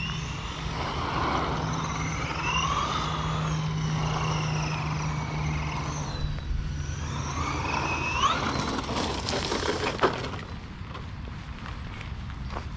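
Redcat Camo TT Pro RC trophy truck's brushless motor whining, rising and falling in pitch with the throttle, over the hiss of its tyres on wet pavement. A sharp knock comes about ten seconds in.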